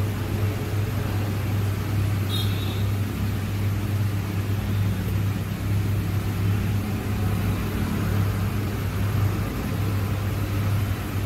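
Steady low hum over a wash of noise, like a motor or electrical machine running, with a brief faint high squeak about two seconds in.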